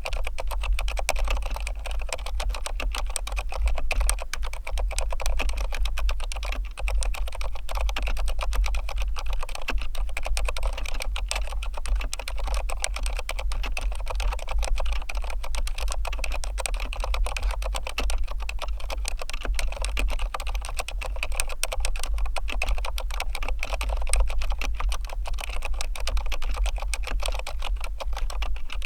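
Cherry MX 2.0S Wireless Pro mechanical keyboard with MX2A Red linear switches being typed on fast and without pause: a dense, even stream of key clacks.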